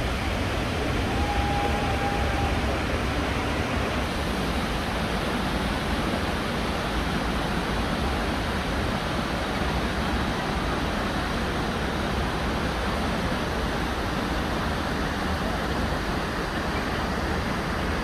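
The Ouzoud waterfalls: a steady rush of falling water.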